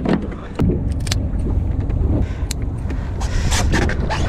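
Steady low rumble on a small open fishing boat, with scattered clicks and knocks from fishing gear and a bucket being handled on the deck, more of them in the second half.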